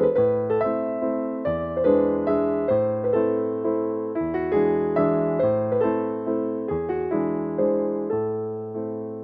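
Background piano music: a flowing run of struck notes over a bass note that changes about every second and a half.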